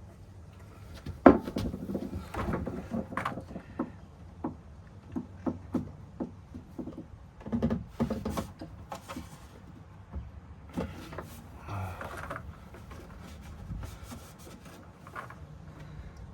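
Hands working a diesel heater's fuel line into place: an irregular run of knocks, taps and scuffs, the sharpest about a second in.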